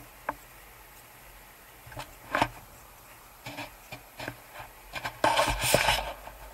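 Handling noise from a 360 camera on a selfie stick carried while walking: irregular clicks, knocks and short scrapes. A louder, longer scuffing rub comes about five seconds in.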